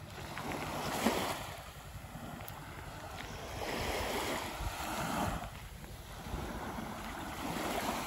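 Small waves lapping onto a sandy shore, washing in three times a few seconds apart, with a low rumble of wind on the microphone.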